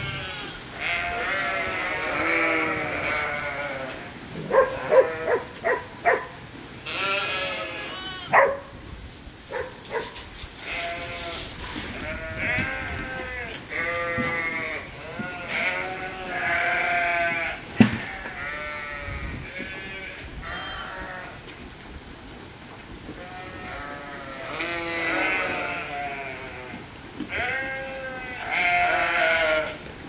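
A pen of young lambs bleating over and over, many wavering calls overlapping one another. A few sharp knocks stand out about five seconds in and once more near eighteen seconds.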